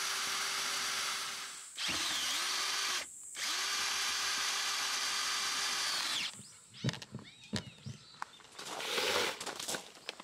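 Cordless drill winding down a caravan's stabilizer leg through a long extension bar: the motor whines steadily in three runs with short stops, its pitch dipping briefly under load in the second run, then winds down about six seconds in. Scattered clicks and rustling follow.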